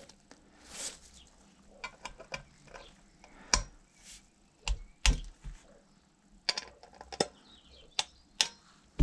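Click-type torque wrench ratcheting in short runs of small ticks on the small M5 titanium chainring bolts, with a few sharper, louder clicks as the wrench reaches its set torque during a recheck.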